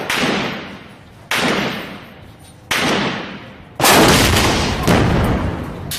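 Gunfire in a firefight: single sharp shots about every second and a half, each followed by a long echo. The loudest and deepest of them comes about four seconds in, with a smaller shot just after it.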